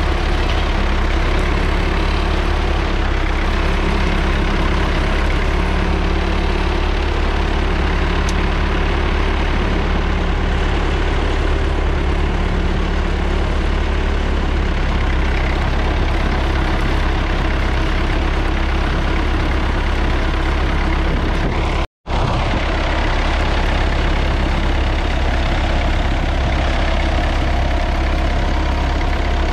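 1961 Massey Ferguson 65's 3.3-litre four-cylinder diesel engine running steadily. The sound cuts out for an instant about three-quarters of the way through.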